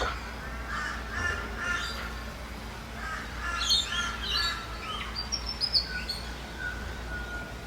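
Several wild birds calling over one another in a dawn chorus, with a flurry of higher, sharper chirps about halfway through, over a low steady rumble.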